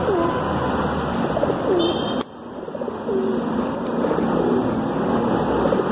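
Feral pigeons cooing close by, a string of low, swooping coos over a steady background rumble. The sound drops away briefly about two seconds in.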